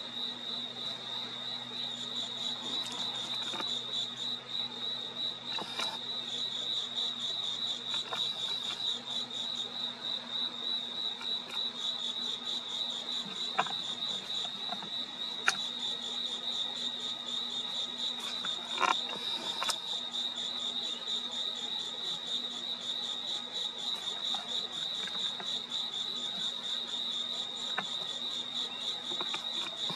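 Crickets chirping in a steady, pulsing chorus, with a higher insect pulsing on and off above it. A few sharp clicks come around the middle.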